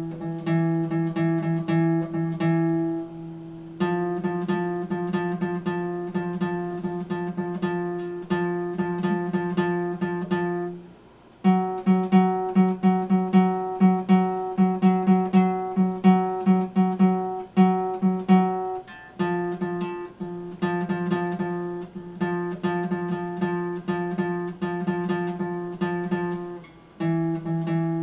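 Epiphone acoustic guitar strummed in quick, even strokes. It holds each chord for several seconds and changes chord about every eight seconds, with a brief drop in sound just before some of the changes.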